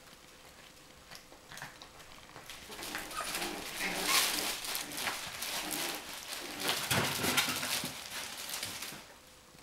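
Coton de Tulear puppies play-fighting: scuffling and rustling on the bedding and fabric tunnel, with small puppy noises mixed in. It builds from about two and a half seconds in and dies down near the end.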